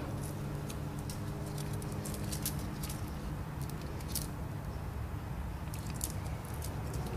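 Light clicks and clinks of thin steel flywheel shims and a dial indicator being handled, over a steady low hum that stops about halfway through.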